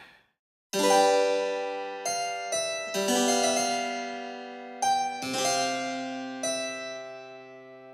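Background music on a keyboard instrument: chords struck one after another and left to ring and fade, starting a moment in after a brief silence.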